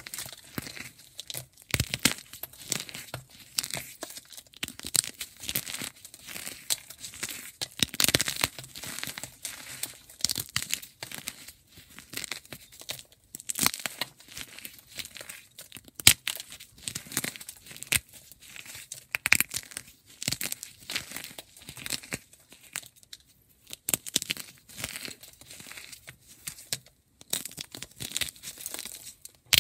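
Gym chalk being shaved and crumbled close up: a dense, irregular run of crisp crunches, crackles and scrapes, with a brief pause near the end.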